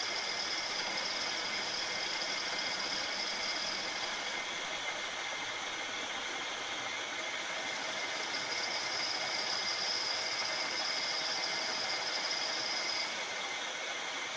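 Milling machine spindle running with an end mill cutting into a metal workpiece, a steady machining sound. A high tone in it is strong at first, drops back for a few seconds in the middle, then returns stronger before easing near the end.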